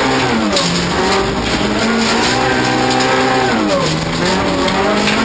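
Toyota Corolla rallycross car's engine heard from inside the cockpit, at high revs. The pitch drops as the driver lifts for a corner about half a second in, climbs back, drops again near four seconds and picks up once more near the end.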